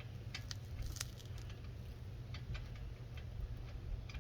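Faint, irregular light clicks as lug nuts are handled and threaded by hand onto the wheel studs, over a steady low hum.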